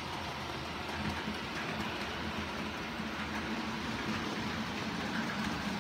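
OO gauge model train running on the layout: the locomotive's electric motor whirring and its wheels and the wagons rumbling along the track in a steady, even hum. The locomotive has no sound chip yet, so this is the model's own mechanical running noise.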